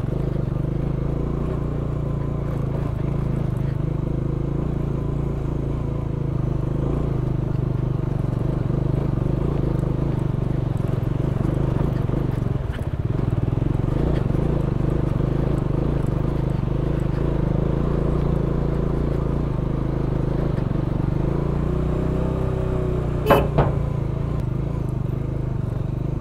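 Bajaj Dominar 400's single-cylinder engine running steadily as the motorcycle rides a rough gravel track. Near the end there is a brief, loud, sharp sound in two quick parts.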